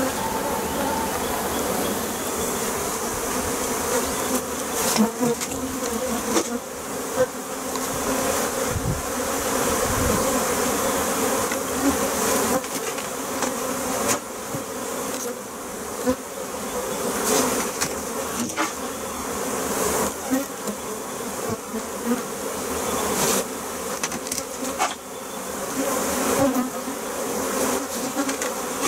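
A large colony of honeybees buzzing in a loud, steady hum around an open hive, stirred up by having its comb frames lifted and moved. Scattered short knocks come from the wooden hive frames being handled.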